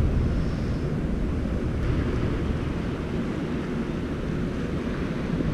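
Steady low rumble and rush of water churning below a dam spillway.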